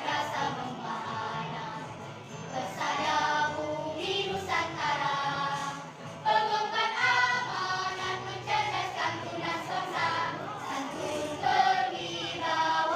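A choir singing in phrases, with a steady low layer underneath.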